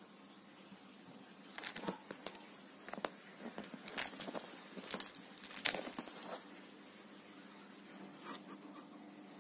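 A cat scuffling with a fur toy mouse on a fabric sofa cover: bursts of rustling and claw scratching on the cloth, busiest in the middle and dying down near the end.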